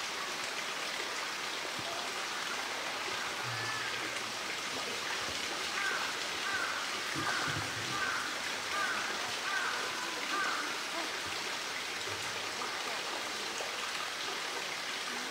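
Steady rush of running water as an even hiss. Around the middle, a short falling call repeats about six times in a row, roughly one every three-quarters of a second.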